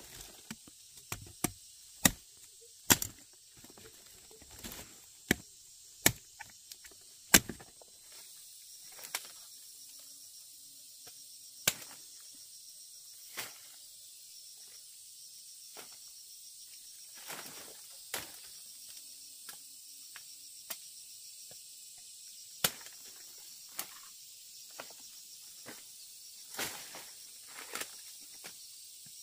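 Round forest fruits being cut and snapped off a large bunch: sharp knocks and snaps about once a second for the first several seconds, then sparser and softer. A faint steady high insect drone runs underneath.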